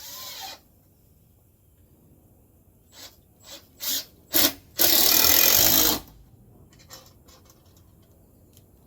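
Power drill driving a screw into wood to fasten a 2x6: a few short trigger blips, then one loud run of about a second as the screw is driven home.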